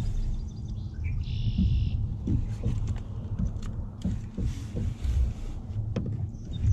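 Low rumble of wind on the microphone, with knocks and rustles of handling as a largemouth bass is lifted with a fish grip. A short high trill sounds a little over a second in.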